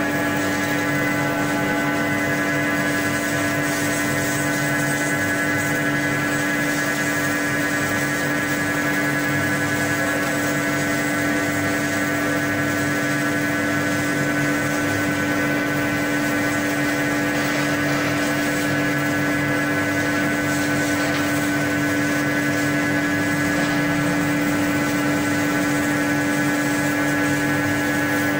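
A wire-type foam CNC contour cutting machine running with a steady mechanical whine: one strong low tone with a ladder of higher tones, unchanging throughout.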